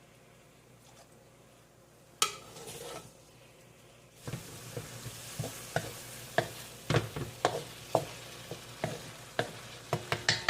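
Ground beef sizzling in a pan while a spoon clicks and scrapes against the pan again and again, scooping out the water the meat has released. A single knock comes about two seconds in, and the sizzle starts about four seconds in.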